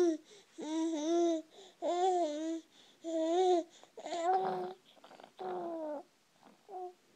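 Baby vocalizing with its thumb in its mouth: a run of about six drawn-out, wavering hums or coos, roughly one a second, with short pauses between them.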